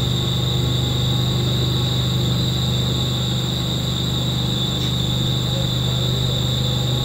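HSCF (horizontal split-case) pump set running steadily during commissioning: a loud, unchanging low hum with a thin high whine above it.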